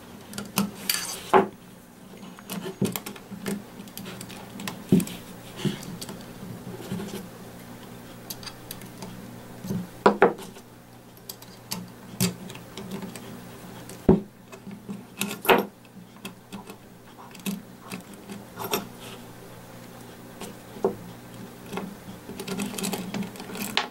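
Scattered small metallic clicks and taps as the parts of a stripped Ruger Mark IV pistol frame are worked by hand: the sear nudged aside and the hammer assembly taken out. A steady low hum runs underneath.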